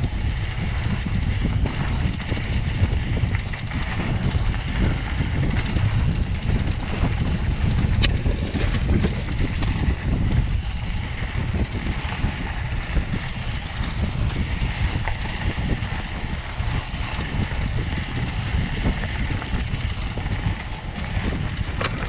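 Wind buffeting the microphone of a camera riding on a mountain bike, mixed with the rumble of tyres rolling over a dirt trail, with an occasional knock from the bike.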